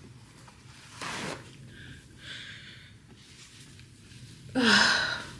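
A woman crying between sentences: a sharp, noisy breath in about a second in, then near the end a louder shaky breath out with her voice falling in pitch, like a sob.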